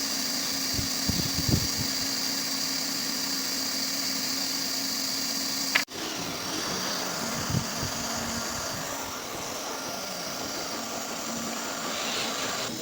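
A machine running steadily: a low hum with a high whine over it. It breaks off abruptly nearly six seconds in and resumes slightly lower in pitch.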